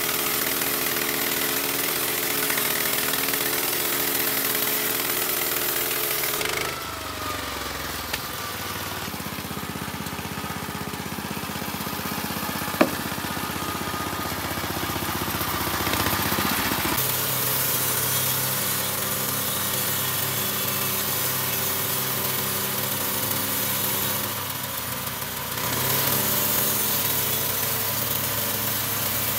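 Small engine of a portable horizontal bandsaw sawmill running steadily under load as the band blade cuts through a teak log. The sound turns duller from about 7 to 17 seconds in, with one sharp click about 13 seconds in, then returns to its earlier note.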